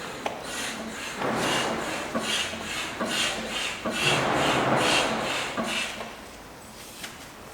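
Rhythmic scraping strokes, about two to three a second, running for about five seconds and then stopping.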